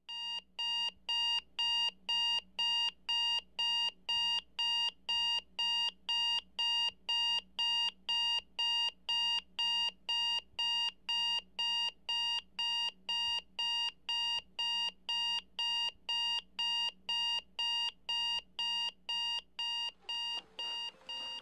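Digital alarm clock beeping in a steady rhythm of about two high beeps a second, fading near the end.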